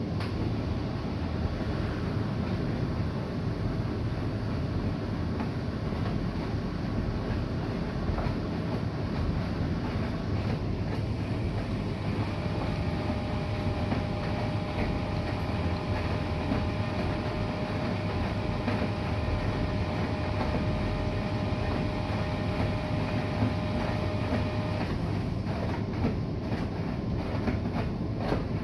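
Bosch i-Dos WGG154A10 front-loading washing machine running with a steady rumble from the turning drum. A steady motor whine joins in about twelve seconds in and stops about twenty-five seconds in.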